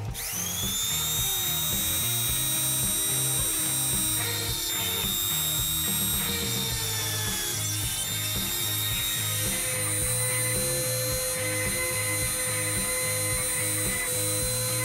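Rotary engraver with a carbide burr, run by a homemade CNC machine, spinning at a high steady whine while grinding into a steel plate. The whine rises quickly at the start and sags briefly about halfway through.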